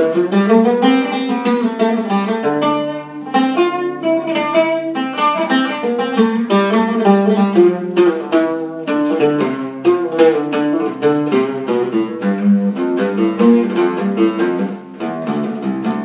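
Solo oud played in a quick improvised run of plucked notes, moving low and high from the key of D, with a low note sounding again and again beneath the melody.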